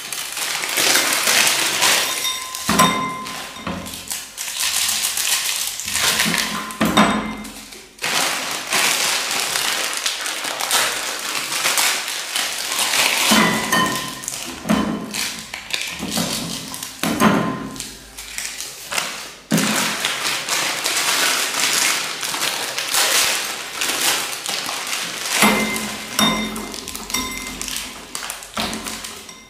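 Instant-noodle packets and seasoning sachets rustling and tearing open, with dry noodle blocks and hands knocking and clinking against ceramic bowls.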